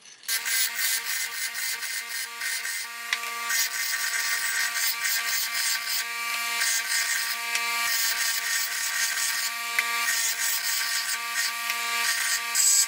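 Electric bench grinder running with a steady motor hum while a steel bolt is pressed against its abrasive wheel, a continuous grinding scrape that varies as the metal is pushed on: the bolt's head is being ground off.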